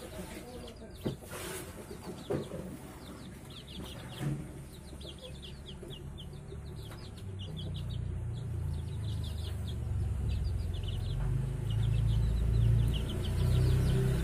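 Young chickens peeping as they forage: runs of short, high, falling peeps. There are a few sharp knocks in the first few seconds, and a low rumble grows louder through the second half.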